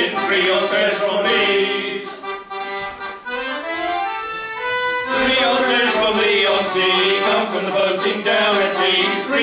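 Piano accordion playing chords. About two seconds in it drops quieter to a rising run of single notes, and the full chords come back about five seconds in.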